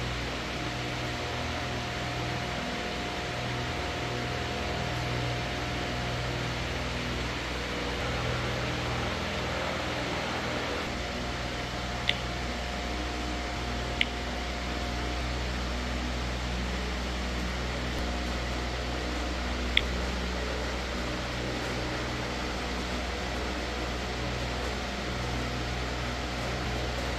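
Garage fan running steadily as a broad hiss with a low hum. Three short, sharp ticks about 12, 14 and 20 seconds in are the display's touch tones as the touchscreen is tapped.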